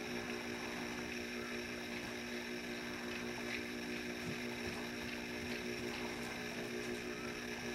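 Steady mechanical hum made of several constant tones over an even hiss.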